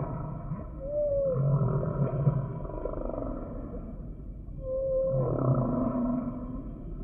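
Humpback whale song: low moaning units repeating every few seconds, with short higher-pitched calls that rise and then fall, about a second in and again about five seconds in, and a lower sliding moan just after the second one.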